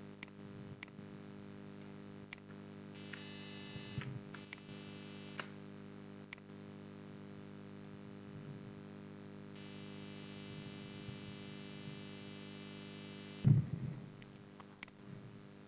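Steady low electrical hum from the recording setup, with a handful of sharp computer-mouse clicks at irregular intervals and faint hiss coming and going. A single louder low thump sounds near the end.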